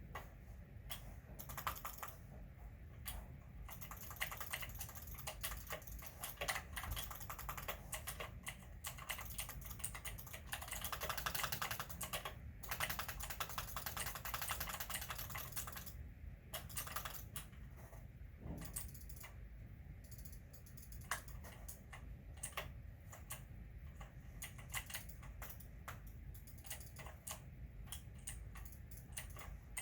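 Computer keyboard being typed on: irregular keystroke clicks, becoming a dense, fast run of typing for several seconds in the middle before thinning out again.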